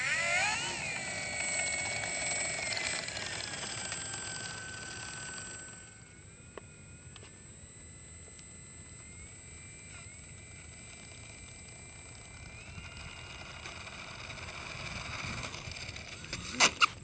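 Brushless electric motor of a foam radio-controlled Boeing P-26 Peashooter model whining as the plane taxis on the runway. The pitch rises sharply at the start, then eases down in steps and settles about six seconds in to a quieter, steady whine that climbs a little near the end. Two sharp clicks come just before the end.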